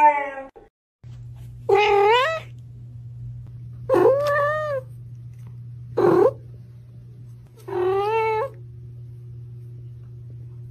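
The tail of a husky's howl falls away just after the start. After a brief gap a kitten meows four times, short rising calls about two seconds apart, over a steady low hum.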